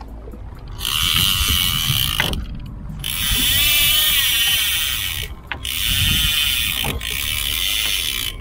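Fishing reel ratcheting in three long bursts, each lasting a couple of seconds, with short pauses between them, while a hooked fish is fought on a heavily bent rod.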